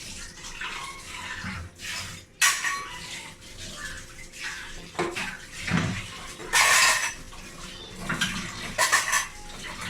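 Kitchen utensils and cookware clinking and scraping in repeated knocks, with a louder rush of noise lasting about half a second about two-thirds of the way in.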